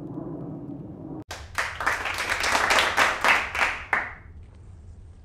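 Rapid hand clapping, about five claps a second for roughly two and a half seconds, then fading out.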